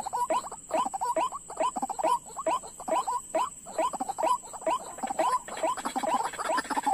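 White-breasted waterhens calling: a rapid run of short, harsh, repeated notes, several a second. A thin steady high whine lies underneath.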